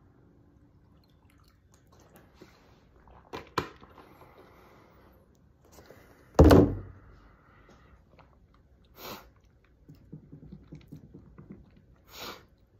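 A man drinking from a glass: quiet sips and swallows, a couple of clicks, and one loud thump about halfway through, with a few short bursts of noise near the end.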